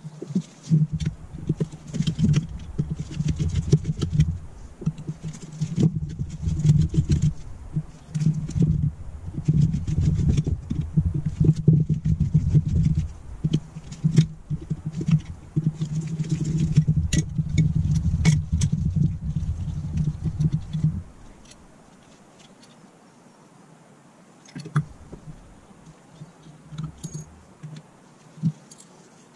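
Metal clicking, tapping and scraping as a screwdriver and the parts of a Zenith 30IZ carburettor are worked against an aluminium bench block while the carburettor is taken apart, over a low, steady handling noise. After about twenty seconds the handling noise stops and only occasional light clicks remain.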